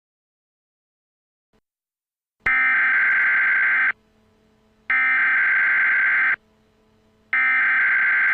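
Emergency Alert System SAME header bursts: three identical blasts of buzzy, screeching digital data tones, each about a second and a half long with about a second between them. They start after about two and a half seconds of silence. They mark the start of an emergency alert.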